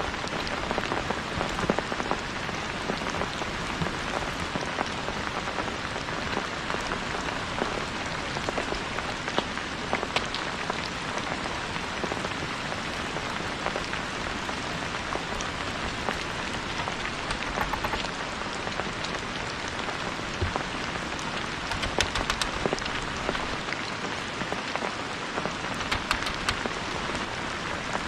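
Steady rain falling, a dense hiss with many close drops ticking sharply on surfaces.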